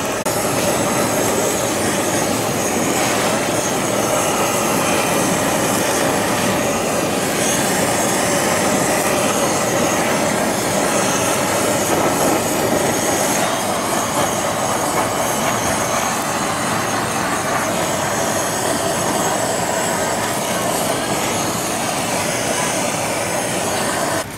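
Handheld butane kitchen torch running with a steady, loud roaring hiss while flame-searing sushi nigiri.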